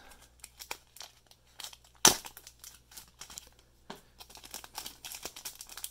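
Clear plastic wrapping of a trading-card repack being torn open and crinkled by hand, with one sharp tear about two seconds in and busier crinkling near the end.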